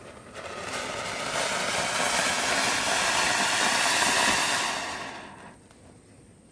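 Legend's Fireworks flower pot (anar) spraying a fountain of sparks: a rushing hiss that builds over the first two seconds, holds, then fades away about five seconds in.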